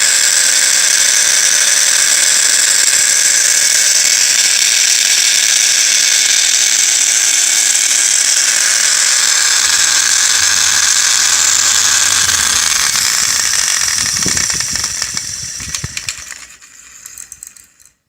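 A small 100 mm disc grinder (baby sander) running with a loud, steady, high-pitched squealing abnormal noise, the sign that the tool is broken. About two thirds of the way through it winds down with a few rattles and stops just before the end.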